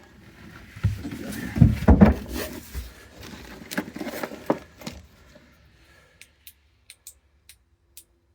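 Wooden cabin lockers and hatches being opened, shut and handled: a run of knocks and thumps, loudest about two seconds in, then a few faint clicks.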